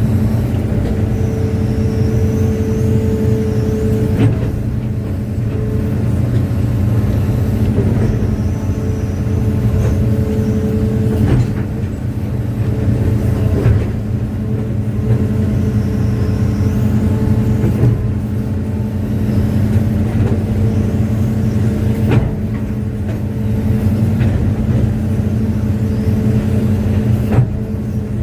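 Hitachi hydraulic excavator's diesel engine running steadily under working load, with a hydraulic whine that comes and goes and a faint high wavering squeal. Several sharp knocks from the machine's working parts are scattered through.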